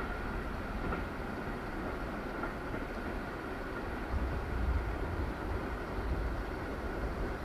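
Steady low rumble of a passenger train running away down the line, its coaches rolling on the rails into the distance.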